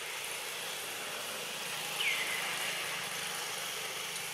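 Steady forest background hiss, with one short call that falls in pitch about two seconds in.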